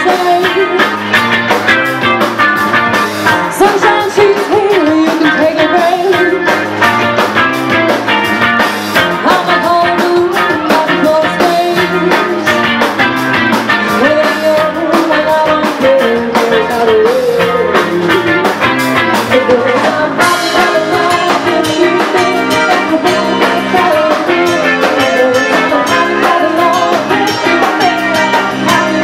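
Live band playing loud amplified music: a woman singing into a microphone over electric guitar and a drum kit.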